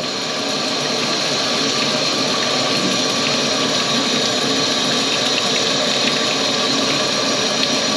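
Kitchen faucet running a full, steady stream into a stainless steel sink, the water going freely down the drain just cleared of a grease clog.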